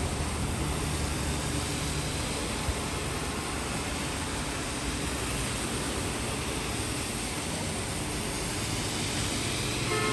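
Steady rain falling in a city, an even hiss, with a low rumble of distant traffic underneath.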